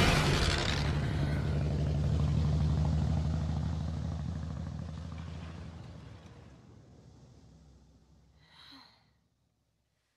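Canvas-covered army truck's engine running as it passes close by and drives off, its low steady rumble fading away over about eight seconds. Near the end, a short breathy sigh.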